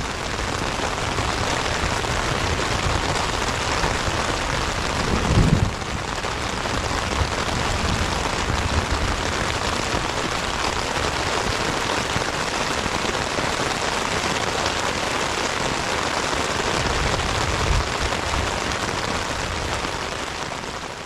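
Heavy, steady rain pelting a tent during a night storm, with a brief low rumble about five seconds in.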